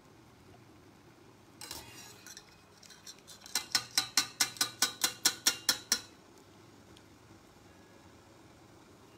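A short scrape about two seconds in, then a quick, regular run of sharp metal clicks, about five a second for some three seconds: a kitchen utensil knocking against a pot or colander while boiled vegetables are drained.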